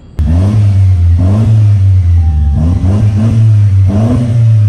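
Mercedes-Benz C-class W204 engine running through a split exhaust with AMG tips, revved in short repeated throttle blips over a steady low drone. It cuts in abruptly just after the start.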